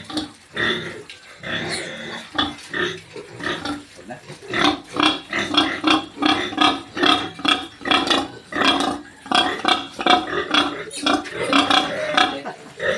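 Pigs squealing in a rapid series of short, loud calls, sparser at first and then about two or three a second from around four seconds in.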